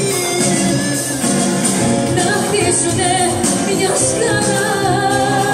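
Live amplified Greek popular song: a female singer with a full band, her voice gliding over a busy, steady accompaniment.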